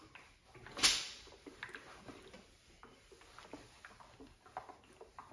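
Rustling and light knocks as a shirt is shifted and a steam iron is handled on an ironing board, with one loud sudden swish about a second in.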